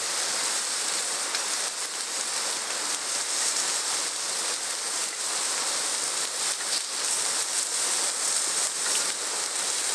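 Beef steak sizzling on a griddle plate over a portable gas stove: a steady, fairly loud frying hiss with small spattering crackles.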